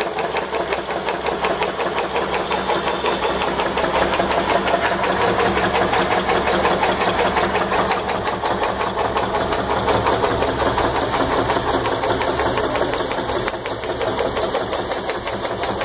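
A pressure washer's belt-driven reciprocating plunger pump and its electric motor running steadily, with a rapid, even mechanical beat from the pump stroke.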